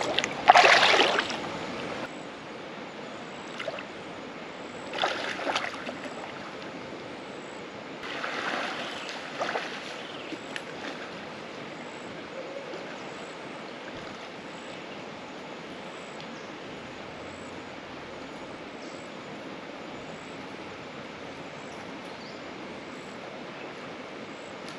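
Freshwater creek running steadily, with three bouts of splashing in the water in the first ten seconds, the first the loudest.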